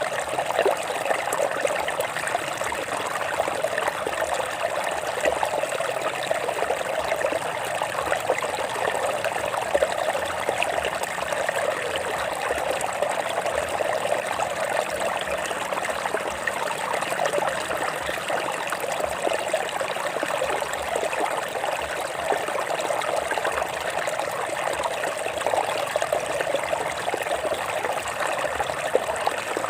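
Stream water flowing over rocks in a steady, even trickle and splash.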